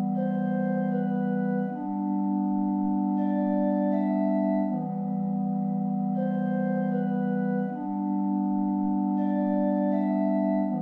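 Background music: slow, sustained organ-like chords that change about every three seconds, with a higher melody of held notes above them.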